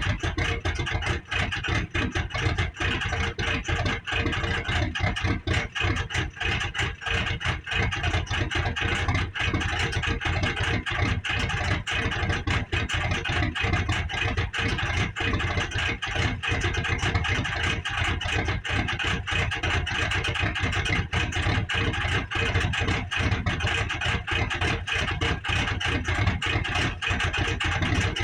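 Cummins 24-valve inline-six diesel idling steadily after a cold start, with a fast, even diesel clatter over a low hum.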